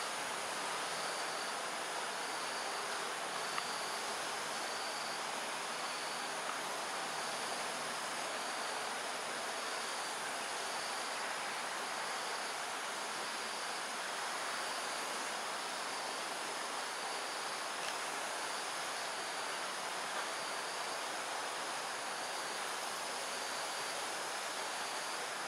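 Evening insect chorus: a steady high chirring hiss with a pulsing chirp repeating about three times every two seconds, fading out about halfway through.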